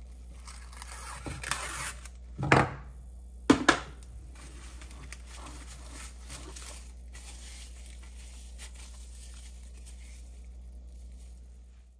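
Plastic cling film crinkling and rustling as it is pulled from the roll and pressed around a ceramic bowl, with two sharp, louder noises about two and a half and three and a half seconds in. After that the rustling is fainter, over a steady low hum.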